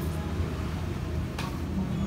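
Steady low background rumble with one short click about one and a half seconds in, from handling a cardboard earbud box.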